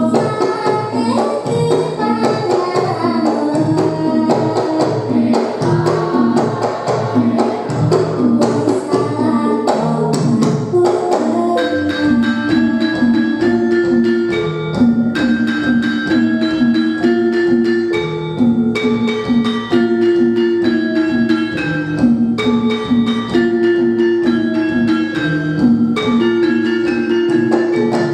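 Javanese gamelan playing a sung piece in the pelog scale (pathet nem): kendang drum, bonang gong-chimes and saron-type metallophones struck in interlocking patterns, with a voice singing over them. About halfway through, the low drum strokes thin out and an even run of repeated metallophone notes carries the piece.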